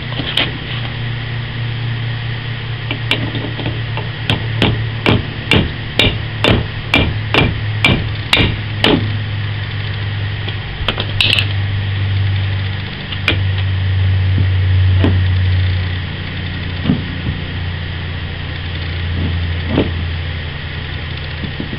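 Hammer blows on a hinge pin removal tool, driving the door hinge pin out of a 1966 Volkswagen Beetle. A quick run of about a dozen sharp strikes comes first, then a few single strikes several seconds apart, over a steady low hum.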